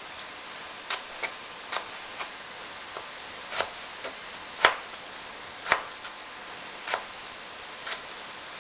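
Kitchen knife slicing carrots into sticks on a plastic cutting board: about a dozen irregular, sharp taps as the blade goes through and strikes the board, the loudest a little before the middle.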